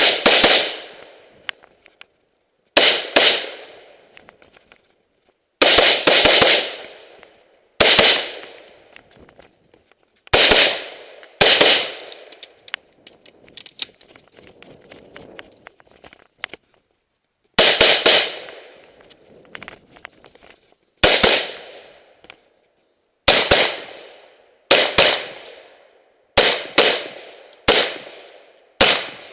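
AR-15 rifle (NGA X7) being fired in a string of about fifteen shots at uneven intervals, some in quick pairs and others a few seconds apart, each shot trailing off in a short echo.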